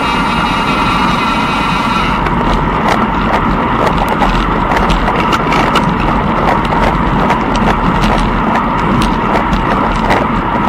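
Steady loud rushing noise from a racer moving along a towpath, picked up by a camera they carry, with quick irregular clicks starting about two seconds in.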